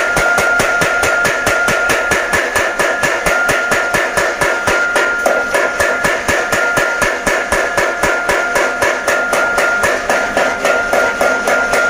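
Mechanical blacksmith's power hammer pounding a piece of metal held in tongs, in rapid even blows of about four to five a second. A steady high tone runs beneath the blows.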